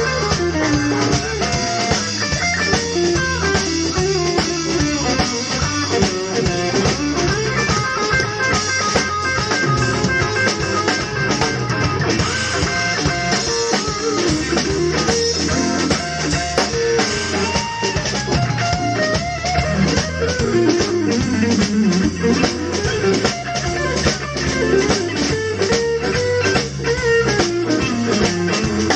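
Organ trio playing a jazz-blues groove: organ, guitar and a drum kit keeping a steady beat.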